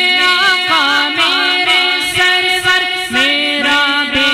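A man's voice singing a naat, holding long notes with wavering ornamental turns, over a steady held tone underneath.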